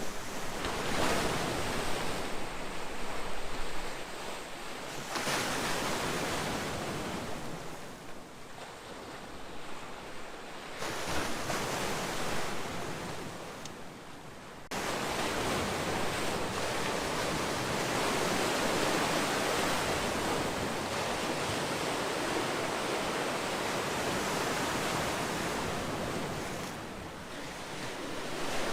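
Ocean waves breaking and washing on the shore: a rushing wash that swells and eases every few seconds, then jumps up abruptly about halfway through and holds steady for a while before easing off near the end.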